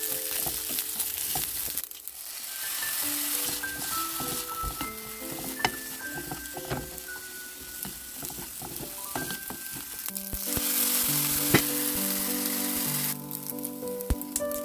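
Fried rice sizzling in a hot pan as it is stirred and tossed with a wooden spatula, with occasional clicks of the spatula against the pan. Light background music plays over it.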